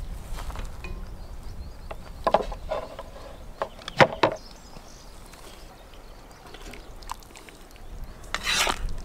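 Serving sounds: a few sharp knocks and clinks of utensils against dishes, the loudest about four seconds in, then a short wet slop near the end as stew is ladled into a bowl.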